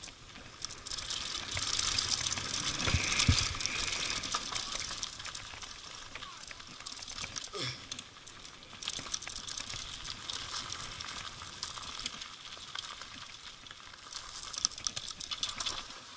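Mountain bike rolling over a gravel and dirt track: a steady crunch of tyres on loose stones with small rattles and clicks from the bike, and a heavier knock about three seconds in.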